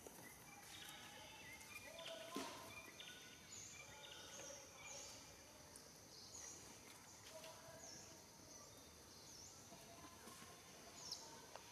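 Faint bird calls: a short, high, dipping chirp repeated about once a second, with scattered short whistled notes at lower pitches.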